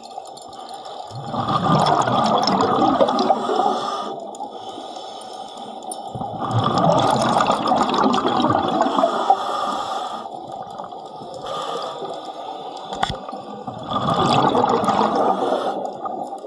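A diver breathing underwater: three long exhalations, each a burst of rushing, bubbling sound about three seconds long, coming roughly every six seconds. Between them there is a quieter hiss of inhaling through the mask's regulator.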